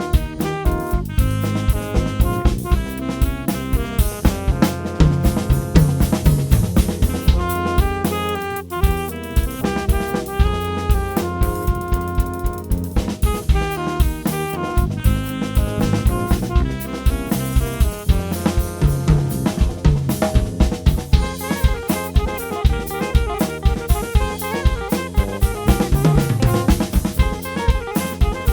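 A small band of saxophone, electric guitar, bass and drum kit playing an instrumental arrangement. The drum kit keeps a steady, busy beat on kick, snare and hi-hat under a moving melody line.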